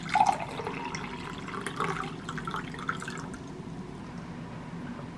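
Water being poured into a drinking glass, splashing and filling for about three seconds, then dying down to faint room noise.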